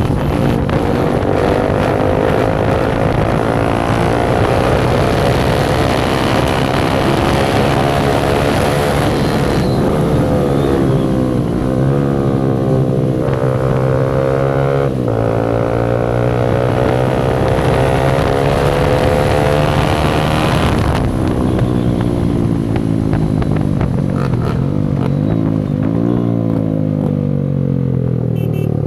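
Motorcycle engine running with no exhaust silencer, accelerating up through the gears: the pitch climbs, drops sharply at each shift about 10, 15 and 21 seconds in, then wavers and falls as the throttle eases off.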